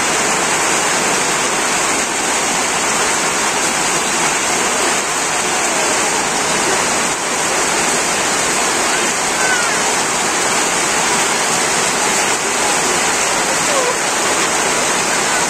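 Heavy monsoon rain pouring steadily on corrugated tin roofs and a waterlogged yard, a dense even hiss with no letup.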